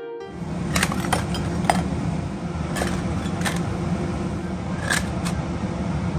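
Crisp fried prawn crackers clicking and tapping against a bowl as they are set into it, about seven light, sharp clicks, over a steady low kitchen hum.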